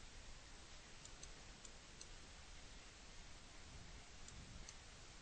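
Near silence: faint steady hiss with a few soft, scattered clicks of a computer mouse.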